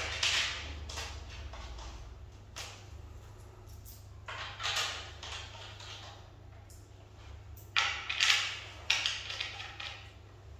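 Short scraping and rubbing sounds, a handful spread over several seconds with a cluster near the end, from hands working the fittings of a flat-pack particleboard panel on a tiled floor, over a steady low hum.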